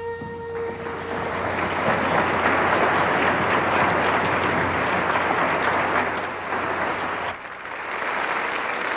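Audience applauding, swelling up in the first second as a held wind-instrument note dies away, with a brief dip in level about seven seconds in.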